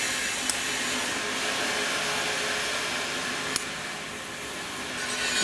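A steady hiss like a fan running, with two small sharp metal clicks from the orrery's brass clock wheels being handled, one about half a second in and one about two-thirds through.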